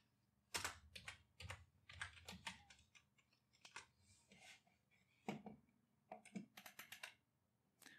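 Computer keyboard typing: irregular keystrokes in short clusters separated by pauses.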